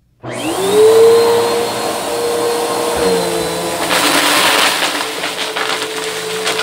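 Bissell upright vacuum cleaner switching on, its motor whine rising and then settling into a steady run. About four seconds in it is pushed into a pile of dried beans, and a rattling clatter of beans being sucked up joins the motor.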